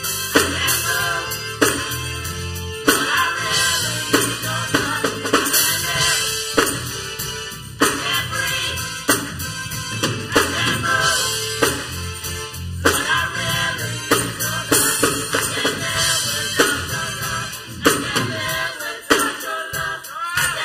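Church choir singing a gospel song, backed by electronic keyboard and a drum kit playing a steady beat.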